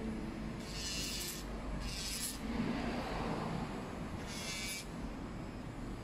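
Electric nail drill (e-file) grinding down acrylic nails with a sanding bit, in three short hissing bursts each time the bit meets the nail, over a steady low motor hum.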